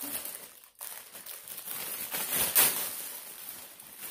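Packaging crinkling and rustling as a hat is unwrapped and handled, loudest about two and a half seconds in.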